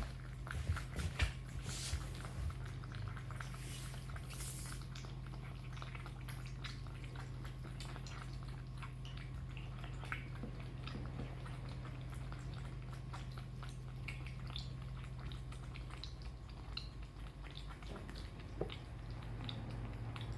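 Cats eating from their food bowls: a steady scatter of small clicks and chewing sounds. A steady low hum runs underneath.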